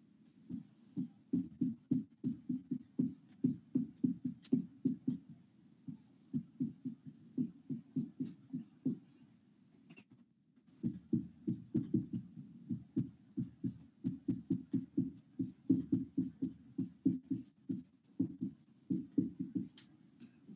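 Red marker squeaking on a whiteboard in quick short strokes as words are written by hand, several strokes a second, with a short pause about halfway through.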